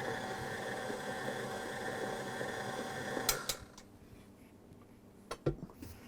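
Electric mixer beating cream cheese frosting, running steadily and then switching off about three and a half seconds in. A couple of sharp knocks follow near the end.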